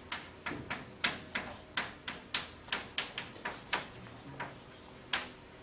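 Chalk writing on a blackboard: a quick, uneven run of sharp taps, several a second, as each stroke is put down, with one louder tap about five seconds in.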